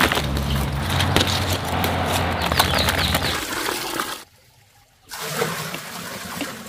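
Tomatoes being picked from leafy vines and tipped into a woven bamboo basket: rustling leaves and light knocks of fruit over a low rushing background noise. The sound drops out briefly a little after four seconds in, then the rustling continues more quietly.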